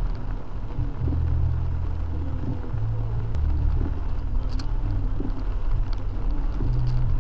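Car driving in rain: a steady low engine and road rumble, with a few faint short ticks.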